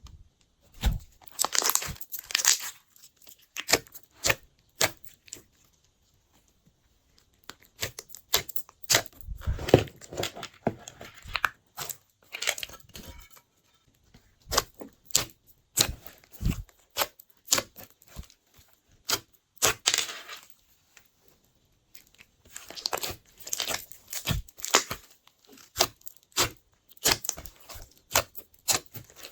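Glossy slime being kneaded, stretched and pressed by hand, making runs of sharp sticky clicks and crackles with short quiet pauses between.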